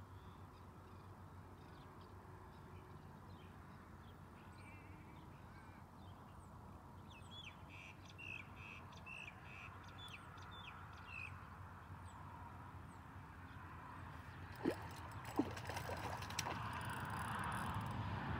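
Faint birdsong over a quiet outdoor background: scattered short chirps, then a quick run of repeated high notes near the middle. Two sharp clicks follow later, and a broad noise builds toward the end.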